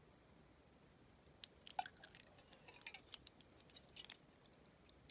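Faint, scattered small clicks and wet squishing from a 3D-printed miniature toilet being flushed, starting about a second in. The weak flush fails to carry the rope-like material down and the bowl clogs.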